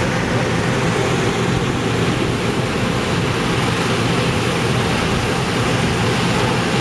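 Hot-air balloon inflator fans running steadily, a low engine hum under a loud rush of air, as the envelopes on the ground are cold-inflated.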